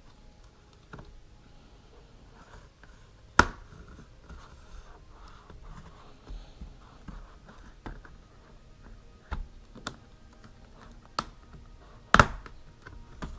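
Fingers scraping along the edge of a Lenovo Yoga 900S laptop's bottom cover as it is pried off by hand, with a few sharp clicks as the cover pops loose. The loudest clicks come about three and a half seconds in and near the end.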